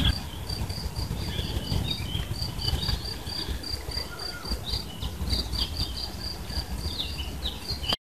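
Outdoor summer ambience: an insect chirping in a steady run of short, high pulses, about three a second, with birds chirping over it and a low rumble beneath. It all cuts off suddenly at the end.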